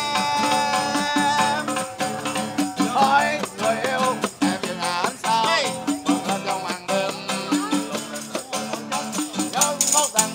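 Acoustic guitar strummed in a steady rhythm with a tambourine shaken and jingling along, and a voice singing over it.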